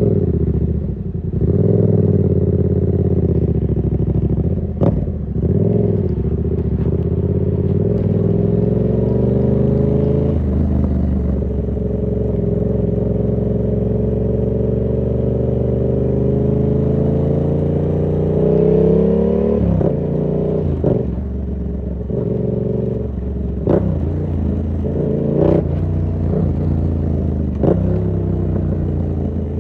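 2019 Yamaha MT-07's 689 cc parallel-twin engine running through an SC-Project exhaust with its dB killer fitted, ridden on the road: engine speed rises and falls through the gears, easing down slowly before it climbs again near the end. There are several sharp clicks along the way, most of them in the second half.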